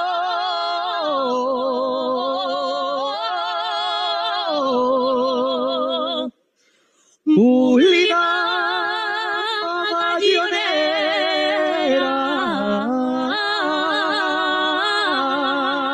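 A man singing an Aragonese jota unaccompanied: long, drawn-out notes with vibrato and slow ornamental turns. The voice stops for about a second midway, then comes back in with a rising slide up to the note.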